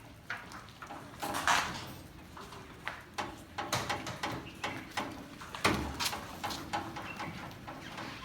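Irregular knocks, creaks and scuffs from a non-starting Willys jeep being pushed by hand in neutral, with one heavier thud a little past halfway; the engine is not running.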